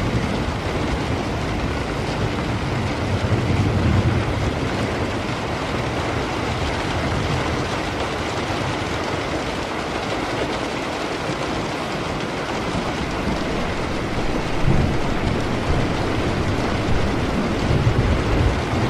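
Steady heavy rain with low rumbles of thunder, one about three to five seconds in and another rolling through the last few seconds.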